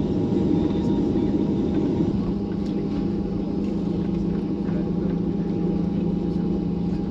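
Steady jet engine hum inside a Boeing 737 airliner's cabin as it taxis, with a low drone and a fainter higher tone held level throughout.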